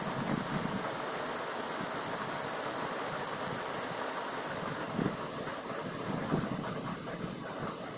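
Steady rushing hiss of flowing water from the waterfall's stream, with low irregular buffets of wind on the microphone. It eases a little about five seconds in.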